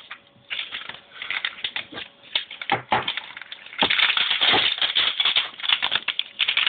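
Crinkling and rustling of the thin plastic protective film being pulled off a new iPad 2 and handled, with irregular crackles and a longer, denser stretch of crinkling about four seconds in.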